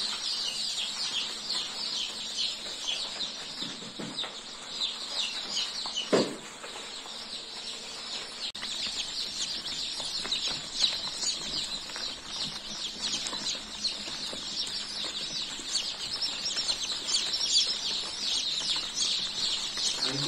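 A large flock of day-old chicks peeping constantly in the brooder, many high-pitched chirps overlapping without a break. A single knock sounds about six seconds in.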